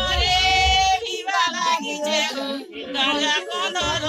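Women's voices singing a traditional wedding ritual song in high, drawn-out notes, with a low rumble in the first second and again near the end.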